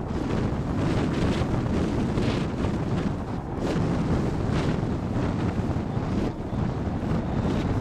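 Wind rushing over a wing-mounted camera microphone on a hang glider in flight: a dense low rumble of airflow that swells and dips in gusts.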